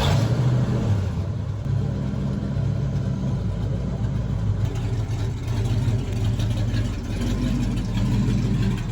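A vehicle engine running steadily at an even, moderate speed.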